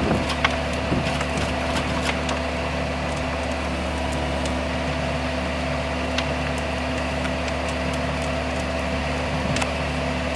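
JCB 160 W wheeled excavator's engine running steadily while its hydraulic rotating screening bucket turns, sifting soil. Scattered sharp clicks and ticks of stones tumbling in the steel mesh drum sound over the steady hum.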